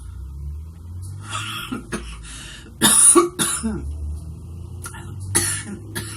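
A woman coughing in a fit of repeated coughs, the kind of cough she says e-cigarette vapour sets off. The loudest cough comes about three seconds in.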